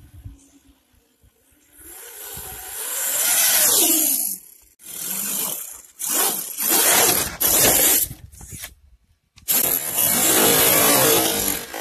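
The electric motor and drivetrain of a Redcat Everest 10 RC crawler truck whine in bursts of throttle, with the tyres scrabbling on gravel. The sound is faint at first, then comes in several loud bursts, with a short break near the end before a long run of revving once the truck has flipped over.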